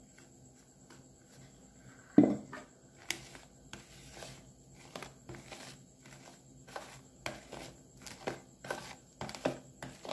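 White plastic spoon stirring a thick, lumpy batter of Amrutham powder and liquid in a plastic bowl, with irregular scraping and tapping strokes about two a second. A sharp knock about two seconds in is the loudest sound.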